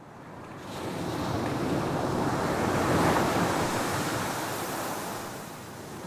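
Ocean surf: a wave breaking and washing up a sandy beach, rising to its loudest about halfway through and then ebbing away.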